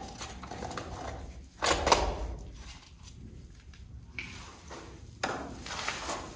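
Plastic electrical socket boxes being handled and trimmed: irregular clicks, knocks and rustling, with two louder clattering bursts, one about two seconds in and one about five seconds in.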